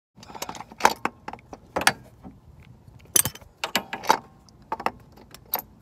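Irregular sharp metallic clicks and clanks of an automotive A/C compressor being worked loose and manoeuvred out of its engine mounting, with metal knocking against metal.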